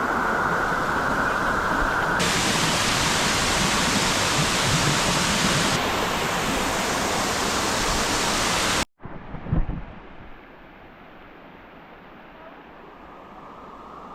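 Waterfall rushing loudly and evenly close by for about nine seconds, its tone changing abruptly twice as the shots cut. It then gives way suddenly to a much quieter steady rush, with a brief thump just after the change.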